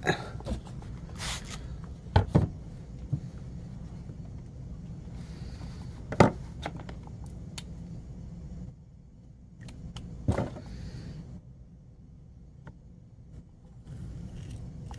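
A few sharp knocks and clicks of a whetstone being handled and clamped into its screw-knob holder on a workbench, over a steady low hum.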